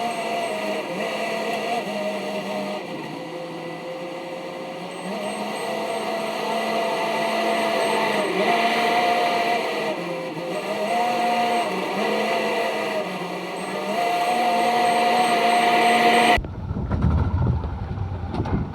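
Kubota SVL65-2 compact track loader's diesel engine running under work, its pitch rising and dipping over and over as the machine is worked. About sixteen seconds in, the sound cuts abruptly to a deeper, uneven rumble.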